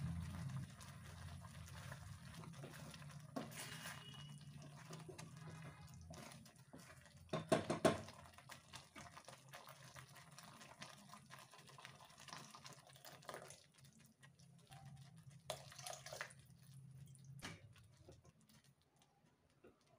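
Mor kuzhambu (buttermilk curry) simmering in a metal kadai, faint bubbling and popping over a low steady hum that stops near the end. A brief louder clatter comes about eight seconds in.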